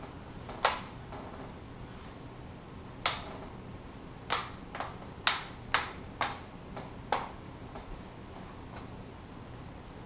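Plastic screen bezel of a Dell Inspiron 15R 5537 laptop snapping back onto the lid: about eight sharp clicks at uneven intervals as its clips seat one by one.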